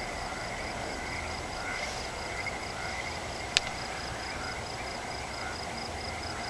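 Night chorus of frogs and insects: a high chirp repeating several times a second over scattered shorter, lower calls, with one sharp click about three and a half seconds in.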